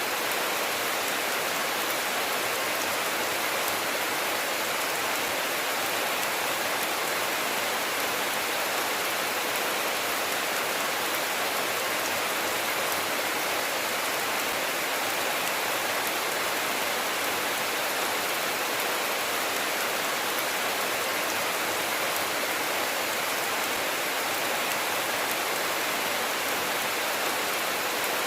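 Steady rainfall: an even hiss of rain without pause or change.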